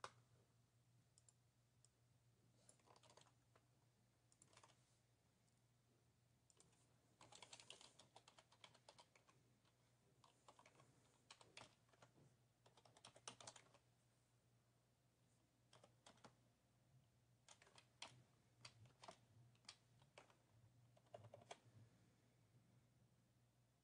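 Faint typing on a computer keyboard: several runs of quick keystrokes separated by pauses, over a faint steady low hum.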